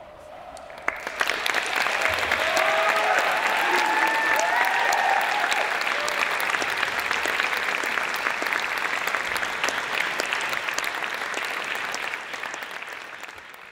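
Audience applauding, starting suddenly about a second in, with a few shouted cheers rising above the clapping around two to three seconds in; the applause tapers off near the end.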